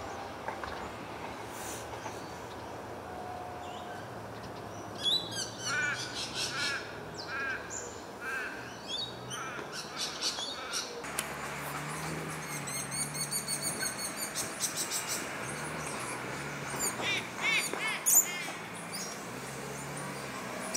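Birds calling, with many short downward-sweeping chirps and quick trilled runs of calls, starting about five seconds in and continuing on and off, over a steady low background rumble.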